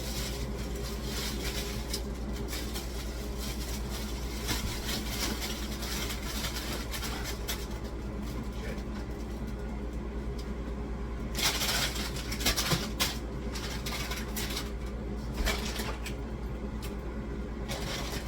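Household items being shifted and set down, with irregular rustling and clattering, loudest about two-thirds of the way in, over a steady low hum.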